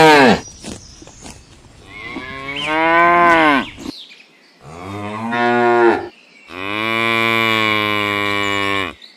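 A cow mooing: the tail of one moo, then three more moos, the last a long, steady one held for about two seconds.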